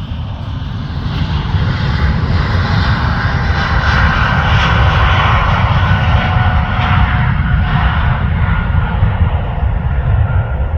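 Jet airliner's engines running loud close by, a heavy low rumble with a faint whine above it. It swells over the first couple of seconds, and its higher part fades over the last few seconds as the plane moves off.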